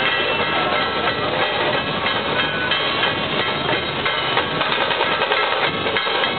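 Festival drums played fast and without a break for street dancing: a dense, loud clatter of beats, with high ringing tones held over it.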